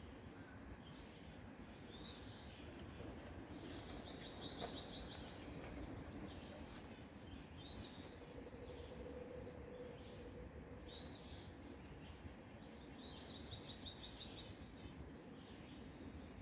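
Small birds singing faintly: a rapid high trill lasting about three seconds, a few short chirps, then a second, shorter trill near the end, over a low steady background rumble.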